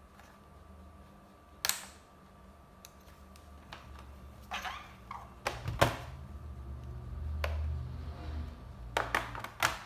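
Sharp plastic clicks and knocks as the back cover of an Asus ROG Strix G laptop is gripped from underneath and lifted off, its clips letting go. About half a dozen clicks, the loudest about six seconds in, with low rumbling handling noise in between.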